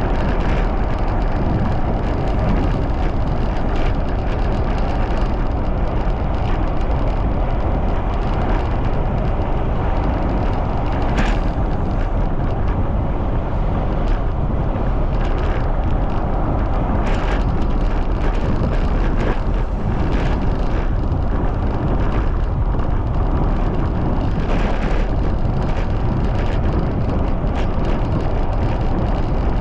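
Heavy wind rushing over the microphone of a bicycle riding at speed, a loud, steady rumble.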